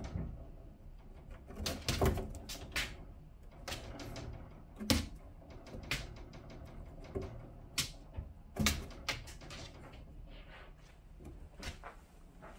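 Sharp taps and knocks at irregular intervals as a cat paws at and bumps against the clear plastic front of its wire-topped cage, chasing a laser dot.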